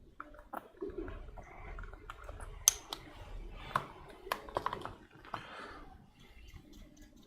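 Scattered small clicks and taps with soft rubbing in between, from acrylic painting on a 3D print: brushes, paint pots and the print being handled. The sharpest taps come about a third and halfway through.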